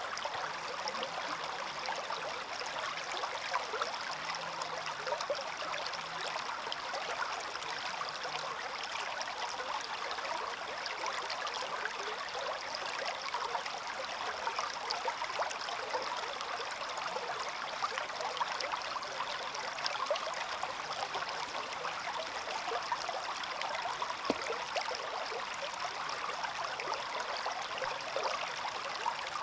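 Small stream flowing and trickling steadily, a continuous rush of water over stones.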